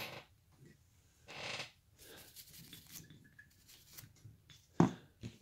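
Carving knife slicing into basswood in short scraping cuts, with a sharp tap near the end, the loudest sound.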